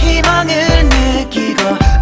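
Music: a song with a deep, heavy bass line and a sliding melodic line over it.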